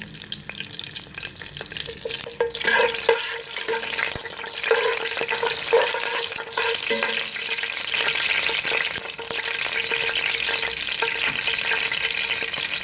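Hot oil sizzling and crackling in a Dutch pot, with halved sweet pepper and mashed garlic frying in it to infuse the oil. The sizzle builds over the first few seconds, then holds steady.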